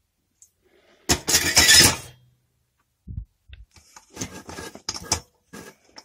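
Metal parts of a paraffin heater's burner clattering as it is handled: one loud rattle lasting nearly a second, starting about a second in, then a run of lighter clinks and knocks.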